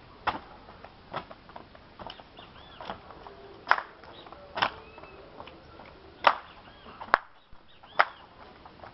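Body percussion: sharp hits made with the hands and body, about one a second in a steady beat, some hits much louder than others.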